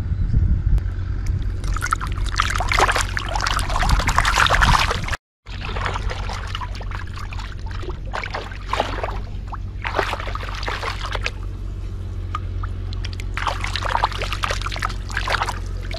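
A hooked fish thrashing and splashing at the surface of shallow water, in three bursts of a few seconds each. A steady low rumble runs underneath, and the sound cuts out completely for a moment about five seconds in.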